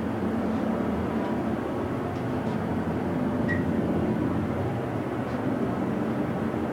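Dover Impulse hydraulic elevator running: a steady low hum of the car in travel. A brief faint high beep sounds about three and a half seconds in.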